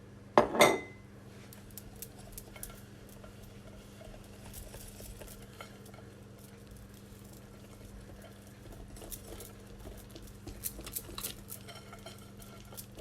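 Two sharp knocks about half a second in, then a spoon stirring semolina and coconut batter in a bowl with faint scraping and light clinks, busier near the end.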